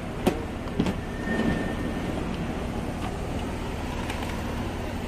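Steady low background rumble of ambient noise, with two short clicks within the first second.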